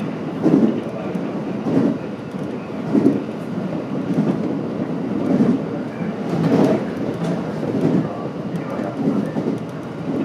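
JR West 227-series electric train running at speed, heard from inside the leading car. A steady rumble runs under a regular clatter of the wheels over rail joints, about once every second and a bit.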